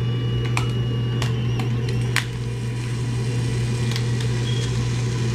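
Fujifilm instant camera firing and its motor pushing out the protective film cover: a thin whine for about two seconds with a few clicks, ending in a sharper click, then a couple of faint clicks later, over a steady low hum.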